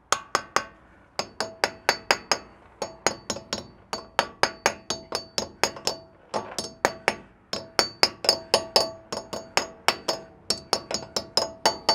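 A hammer tapping the metal dust cap onto a Land Cruiser 200's front wheel hub to seat it. Dozens of quick, ringing metal strikes come in bursts of three to seven, about four a second, with short pauses between bursts.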